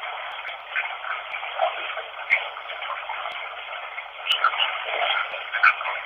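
A running-water recording heard as a steady thin hiss, cut off at the top and bottom like sound through a small radio speaker, with short brighter blips and a few sharp clicks scattered through it. This is the noise bed used in an instrumental spirit-communication session to listen for voices.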